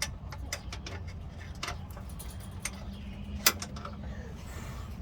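Irregular sharp metal clicks and clinks of hand tools on the bolts of a pickup's rear transmission mount, one much louder click about three and a half seconds in, over a low steady hum.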